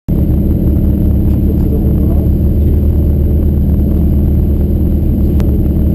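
Rally car engine idling steadily with a deep, even rumble, heard from inside the caged cabin.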